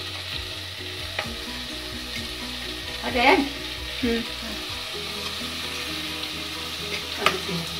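Oil sizzling steadily in a pot of frying onions and ginger as handfuls of dried prawns are dropped in.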